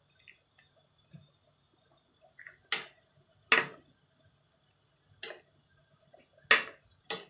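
Five separate sharp knocks and clinks of kitchen utensils and dishes during cooking, spaced irregularly about a second apart.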